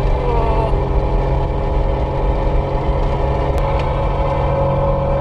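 Steady drone of a vehicle's engine and tyres on a paved road, heard from inside the cab while driving.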